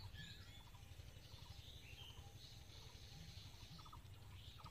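Faint bird calls: high chirping from small birds and short runs of quick pulsed calls from fowl, over a low rumble.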